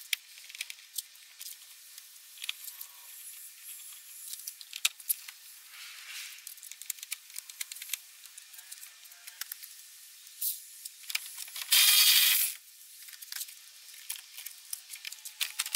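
Hand work on a pickup truck's plastic door trim panel: small clicks, ticks and knocks of a screwdriver on screws and plastic. About twelve seconds in comes one loud scraping rasp lasting about half a second.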